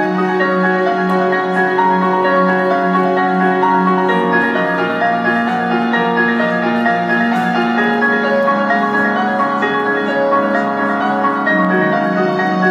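Instrumental music with piano and long sustained chords, played over a hall's speakers. The bass note changes about four seconds in and returns near the end.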